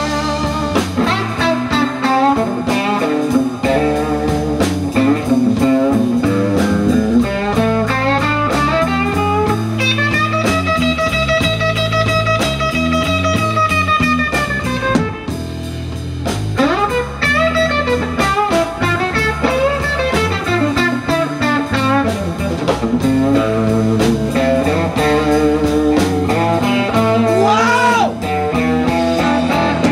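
Blues band playing an instrumental passage: a guitar lead picks out notes over a steady bass line, holding one long wavering note in the middle.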